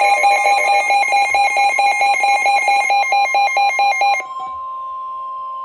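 Weather-radio warning alarm: a steady tone near 1050 Hz with rapid pulsing alarm beeps, about four a second, on top. The beeps stop about four seconds in, leaving the steady tone alone, which signals that a new warning broadcast is about to follow.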